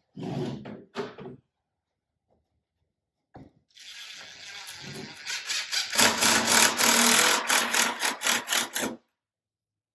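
Cordless drill driving a screw into the wood window framing, running in quick pulses, growing louder about six seconds in and stopping suddenly about a second before the end.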